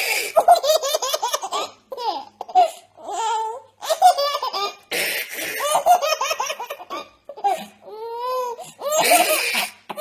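Baby laughing hard in several bouts of rapid, high-pitched laughs, with short breaths between them.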